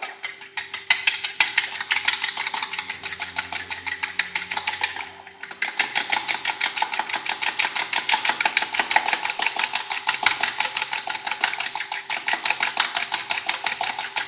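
Fork beating an egg yolk with a little milk in a bowl: quick, even strokes of metal against the bowl, with a short pause about five seconds in.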